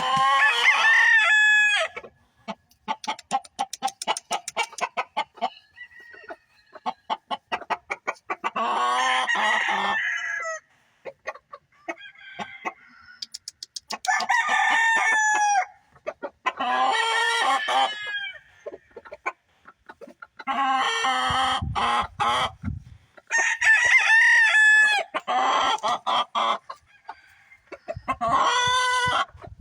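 Roosters crowing over and over, about eight crows of one to two seconds each, with quick clucking in between.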